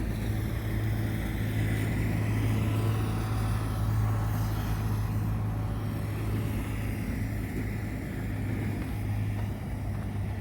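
Road traffic driving past, two waves of vehicles passing over a steady low hum.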